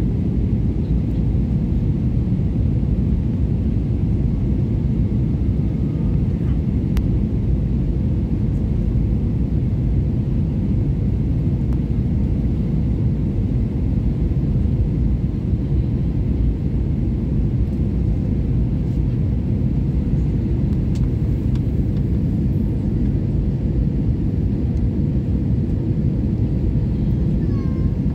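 Airliner cabin noise on final approach to landing: a steady, loud, low rumble of engines and rushing air.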